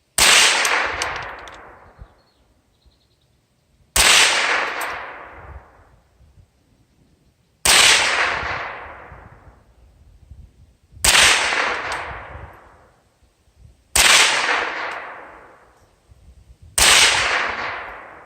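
Six shots from a Remington 597 HB .22 LR semi-automatic rifle, spaced about three to four seconds apart. Each crack is sudden and trails off over about two seconds.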